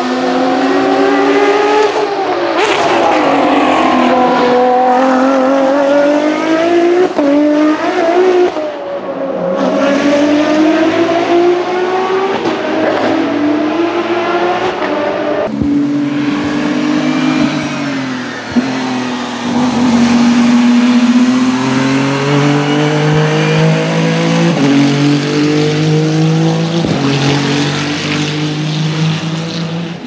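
Ferrari racing cars passing one after another at full song, among them a 599XX with its V12 and a 499P prototype. The engine notes fall on downshifts and climb again through the gears, with a few sudden cuts from one car to the next.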